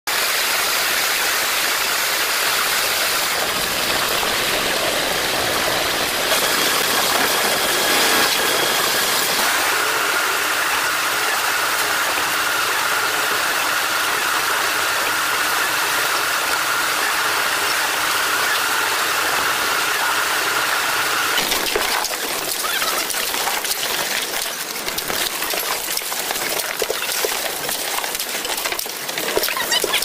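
Construction machinery running at a concrete pour, from a trailer concrete pump and a drum mixer working wet concrete. It is a steady, noisy drone with a faint high whine through the middle stretch, turning rougher and crackly with irregular clicks for roughly the last eight seconds.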